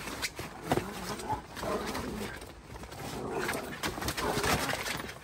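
A Border Collie puppy and a Jack Russell puppy play-fighting, with repeated short growly vocal sounds over scuffling and clicking of paws.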